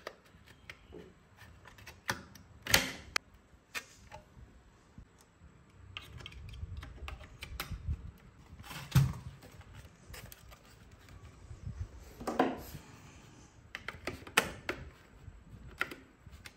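Hard plastic casing parts and a perforated metal speaker grille of a radio cassette player clicking and knocking as they are handled and fitted together. Irregular sharp clicks, with a few louder knocks, the loudest about three and nine seconds in.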